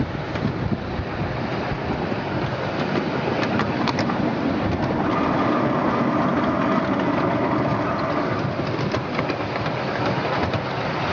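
Ride-on miniature railway train running along the track: a steady rumble with a clatter of wheels on the rails, and a faint steady whine for a few seconds in the middle.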